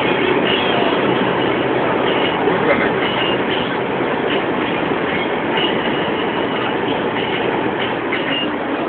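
Steady road and engine noise heard inside a car's cabin while it drives at motorway speed.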